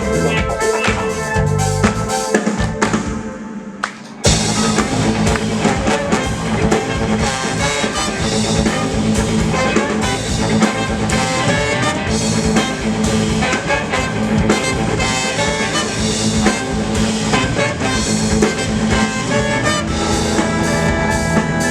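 Live band with a horn section (saxophone, trombone, trumpet) and drum kit playing a swing-rock tune. The band thins out about two seconds in, then crashes back in at full volume about four seconds in.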